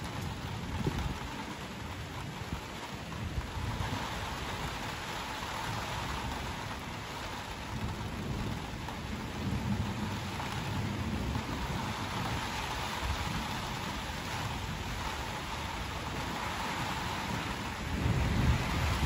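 Steady rain falling during a thunderstorm, under a low, uneven rumble of thunder that swells near the end.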